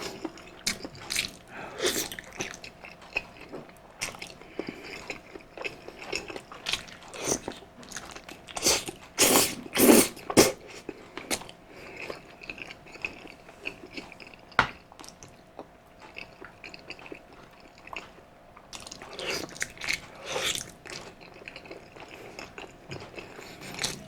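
Close-miked chewing and mouth sounds of a person eating balbacua, a Cebuano beef stew: wet smacks and clicks throughout, loudest in a cluster of bites about nine to ten seconds in.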